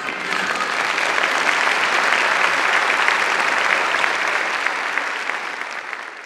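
Audience applauding: dense clapping that swells up as the music stops and fades out near the end.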